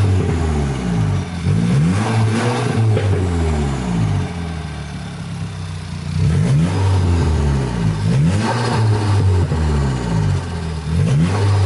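Turbocharged car engine with a newly fitted K04 turbo, revved several times: its pitch climbs and falls back in repeated blips between spells of steadier running. Part of the exhaust is not yet fitted.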